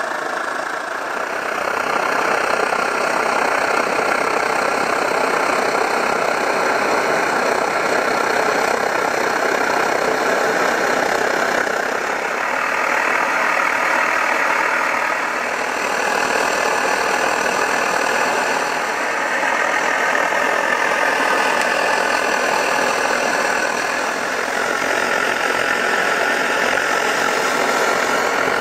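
Svea 123R white-gas stove burning at full pressure: a loud, steady burner hiss that swells slightly a few times. The brass tank has warmed and pressurised itself, so vaporised fuel feeds a strong blue flame.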